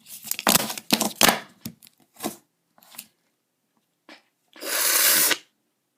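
Handling noises: a quick run of knocks, taps and rustles, then a rush of noise lasting about a second near the end.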